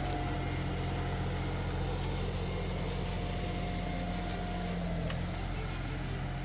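Engine of a heavy machine running steadily with a low, even drone, with a couple of faint knocks about two and five seconds in.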